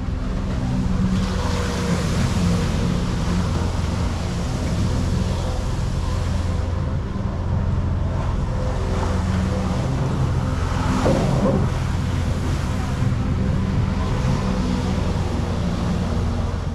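Honda Pop 100 motorcycle's small single-cylinder engine running steadily at low speed, a constant low hum, with wind noise on the helmet-mounted microphone.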